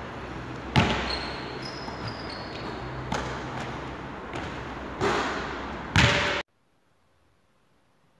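Basketball bouncing on a wooden court floor in a large, echoing sports hall: a few sharp thuds one to two seconds apart, the loudest just before the sound cuts off abruptly about six and a half seconds in.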